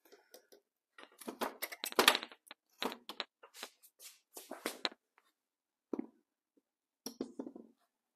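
Metal clunks, knocks and scraping as the Suzuki TS185's engine is worked loose and lowered out of the motorcycle frame, busiest from about one to five seconds in and loudest around two seconds in, with two single knocks near the end.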